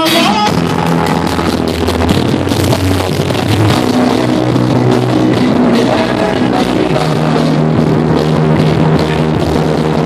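Loud recorded music played through a sound system, with a steady drum beat and guitar, rock-like.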